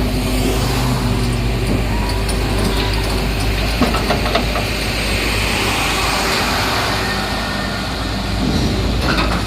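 Heavy diesel engine of a Komatsu 400 excavator running steadily, with a few short metallic knocks about four seconds in.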